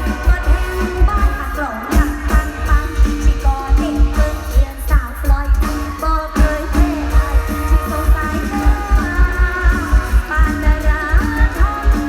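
Live mor lam band music through a large concert PA: a heavy, steady bass-drum beat under a singer's wavering, ornamented melody, with electric guitar.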